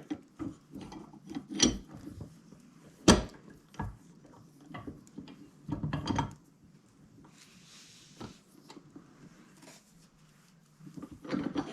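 Knocks, clicks and rubbing of hand tools and scrap electrical plugs being worked at a bench, pulling the brass out of the plugs. A sharp knock about three seconds in is the loudest.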